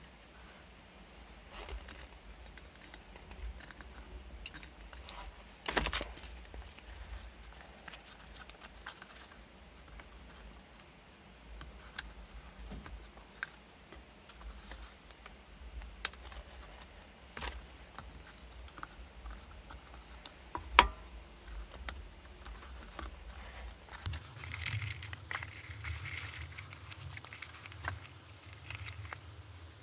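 Scattered small clicks, taps and leather rustling as a leather liner and strap are handled and fitted into a polished steel helmet shell, with a sharper knock about six seconds in and the loudest click about twenty-one seconds in.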